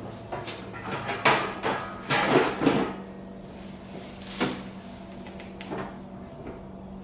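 Sheet-metal cover of a Lincoln Weldpak 180HD welder being handled and fitted back on: a cluster of clunks, knocks and scrapes about a second in, and one more knock a little later.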